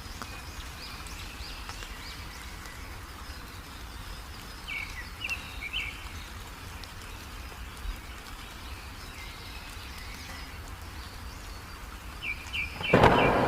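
Small birds chirping in short quick runs over a steady hiss of heavy rain, with a sudden loud crash near the end.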